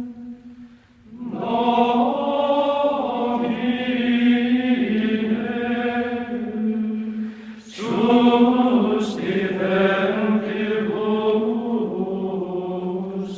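Choral chanting: several voices holding long notes over a steady low drone, breaking off briefly about a second in and starting a new phrase around eight seconds in.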